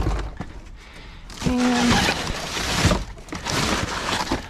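Junk being shifted and tossed around in a dumpster: a thump at the start, then clattering and scraping of debris from about a second and a half in, with a brief squeal of something being dragged.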